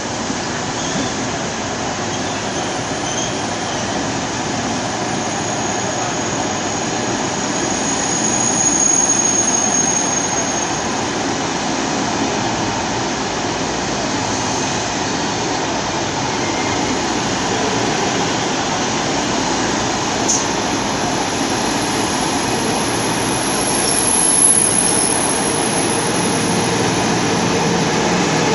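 Eurostar high-speed train rolling along a station platform: a steady rumble of wheels and running gear. A thin high squeal comes in about a quarter of the way through, and a single short click about two-thirds through.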